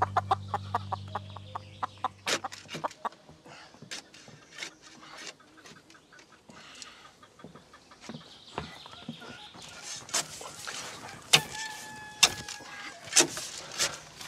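Hens clucking, with scattered sharp knocks in the second half, the loudest about eleven seconds in. Low background music fades out in the first few seconds.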